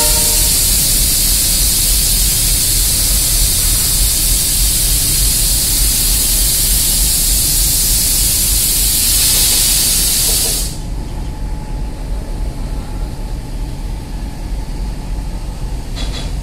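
Passenger train standing at the platform with a loud steady hiss of escaping air over a low rumble; the hiss cuts off suddenly about eleven seconds in, leaving the rumble.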